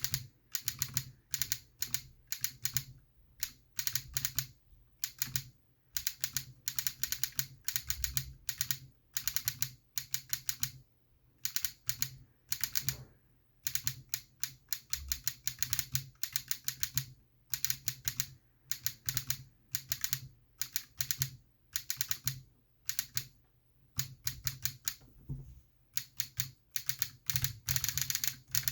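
Typing on a DZ60 mechanical keyboard with lubed Bobagum switches, with a small 5 V solenoid enabled that fires on each keypress. Quick runs of key clicks broken by short pauses.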